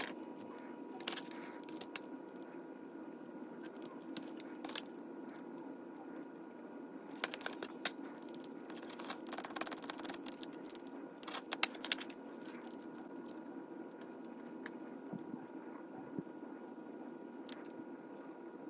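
Faint small clicks and scrapes of hands handling the plastic and metal parts of an opened Tyco HO model locomotive, with a patch of scratching about nine to ten seconds in as a pen-shaped brush scrubs its brass contact strip, and a few sharp clicks just before twelve seconds. A steady low hum sits underneath.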